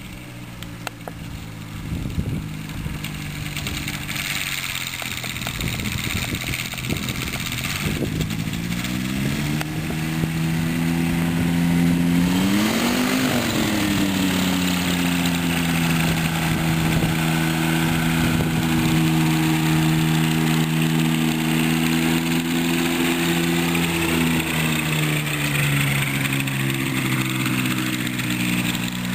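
Ultralight trike's engine running as the trike rolls over rough ground, with knocks and rattles during the first several seconds. The engine grows louder, its pitch climbs to a peak about thirteen seconds in and falls back to a steady run, then dips and climbs again near the end.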